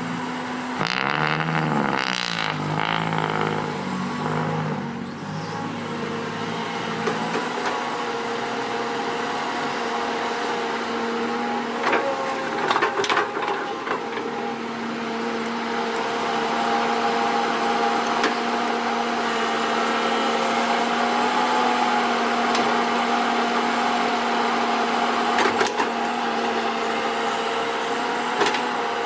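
Diesel engine of heavy earth-moving machinery running steadily, with its pitch wavering in the first few seconds and a few short clanks partway through.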